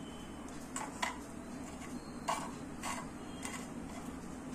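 Monaco crackers being set down one at a time on a plate: about five light taps, spread out, over a steady low hum in the background.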